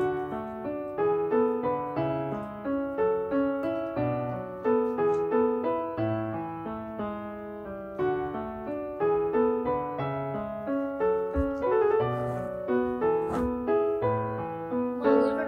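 Background music: a light piano waltz, a steady run of notes throughout.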